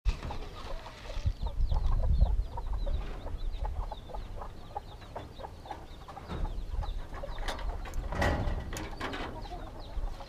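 Chickens clucking, with short high peeps throughout, over a low rumble. A few knocks and rattles from the hutches come about eight seconds in.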